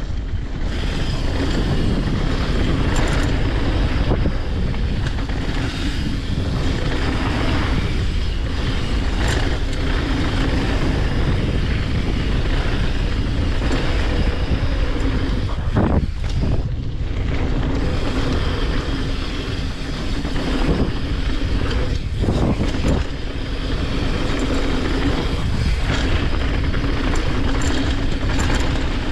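Mountain bike rolling fast down a hardpacked dirt and gravel trail: a steady rush of tyre noise with the bike rattling over the rough surface. A few sharper knocks from bumps come through along the way.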